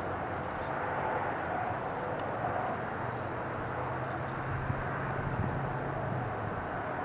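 Distant highway traffic heard from high above the valley: a steady rushing hum of tyres and engines, with a low engine drone joining about three seconds in and fading near the end.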